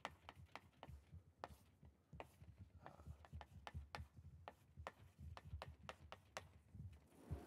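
Chalk tapping and scraping on a blackboard as a formula is written by hand: a faint, irregular run of sharp little clicks, about three or four a second.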